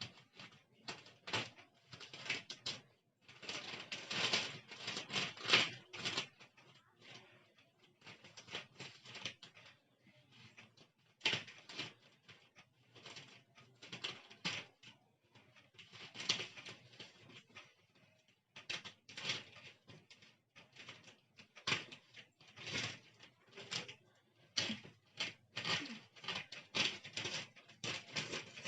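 Plastic packing bag rustling and crinkling in irregular bursts as it is cut open and pulled off a new suitcase.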